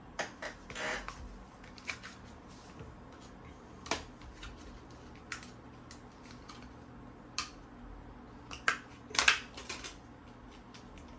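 Scattered clicks, taps and crinkles of a clear plastic CPU tray and its round tin case being handled on a desk, with the loudest run of clicks near the end.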